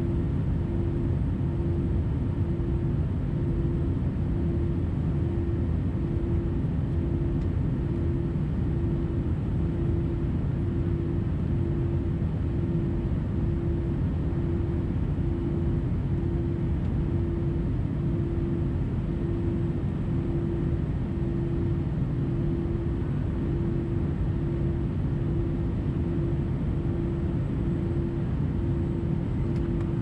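Cabin noise of an Airbus A320-214 in flight, heard from a window seat: a steady rush of airflow over the drone of its CFM56 engines, with a hum that throbs about once a second.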